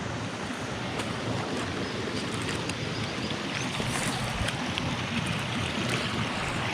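Steady rush of a jungle river flowing over rock, with a few faint clicks.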